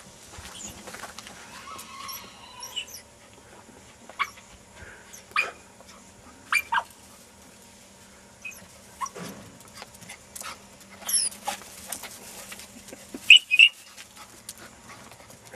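Podenco hound giving a few short, high yelps, with two sharp ones close together near the end the loudest.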